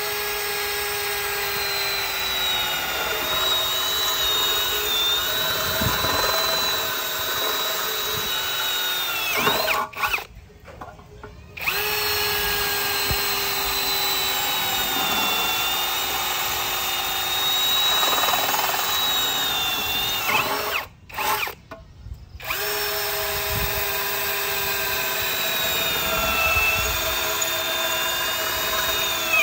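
Boshun 1065BL cordless drill drilling into a thin steel box-section tube with a twist bit: the motor's steady whine in three long runs, stopping briefly about ten seconds in and again about twenty-one seconds in.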